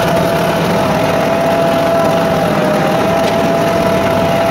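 Ford 5610s tractor's diesel engine running steadily while it pulls a box blade across gravel, with a steady whine over the engine note.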